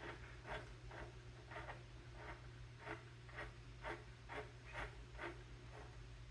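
A run of soft, short scratching strokes, roughly two a second, over a steady low hum.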